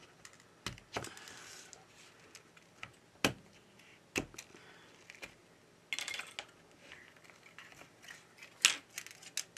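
Scattered light clicks and taps of a plastic pry pick and hand tools on a phone's frame as the battery is pried out. There is a brief scrape about a second in and a quick run of clicks around six seconds.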